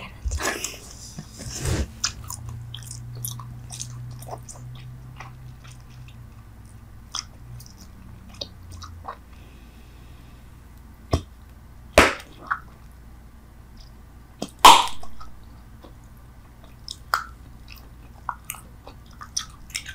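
Person chewing bubble gum: scattered short mouth clicks, with two louder sharp snaps about twelve and fifteen seconds in.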